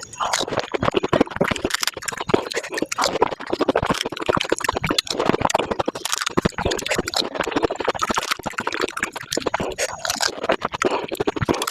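Close-up eating sounds of pani puri being chewed: rapid crisp crunching of the fried shells and mouth noises, played back sped up.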